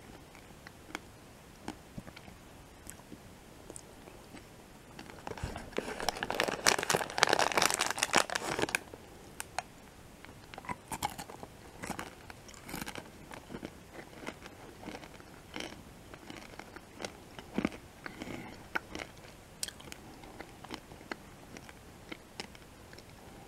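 Close-miked chewing of M&M's candies: sparse faint mouth clicks, then a loud stretch of crunching about five seconds in that lasts around three seconds, followed by softer scattered crunches and clicks.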